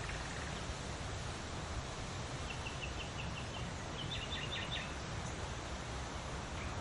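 Steady outdoor background noise with small birds chirping: a quick run of short high notes a little before the middle, then a second brief cluster of chirps just after it.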